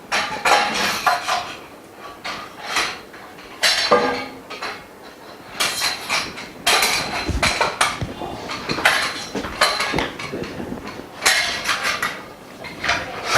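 Frame bars of a dust-free room being fitted together by hand: irregular metallic knocks and clinks, with a deeper thud about seven seconds in.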